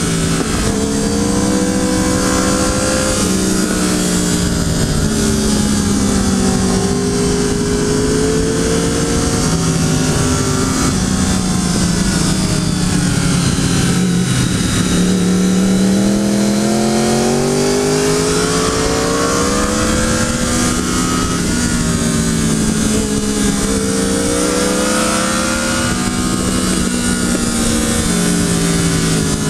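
Triumph Daytona 675's three-cylinder engine running hard, its pitch climbing through the gears and falling off into corners again and again, over steady wind rush.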